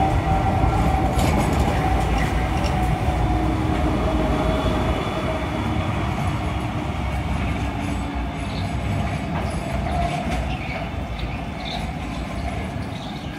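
A Bombardier CR4000 tram runs on street rails close by and then moves away. Its steady hum and the rumble of wheels on the rails fade gradually, with a few faint squeaks from the wheels later on.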